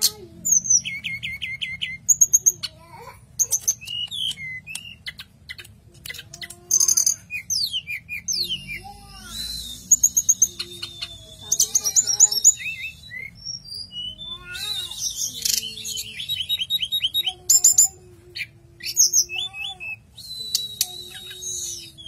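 Caged hill blue flycatcher (tledekan gunung) singing a long, varied song of quick whistled phrases and rapid trills of repeated notes, with hardly a pause.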